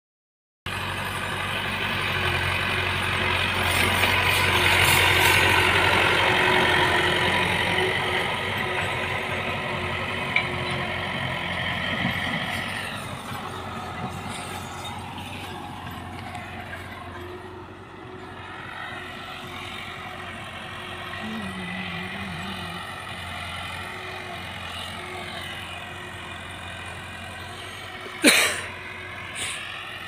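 Massey Ferguson 260 tractor's diesel engine running steadily under load while pulling a tine cultivator through dry soil, loudest in the first dozen seconds and then fainter as the tractor moves away. Two sharp knocks near the end.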